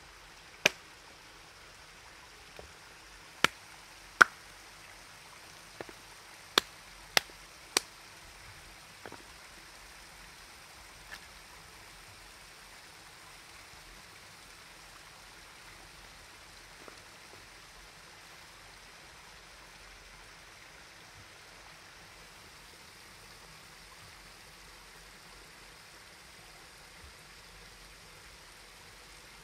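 A series of sharp knocks or clicks, seven loud ones in the first eight seconds and a couple of fainter ones after, over a steady background hiss.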